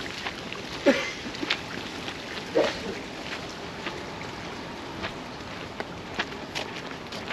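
Footsteps on the wet wooden planks of a footbridge: irregular light knocks over a steady outdoor hush, with two short, louder sounds that fall in pitch, about one and two and a half seconds in.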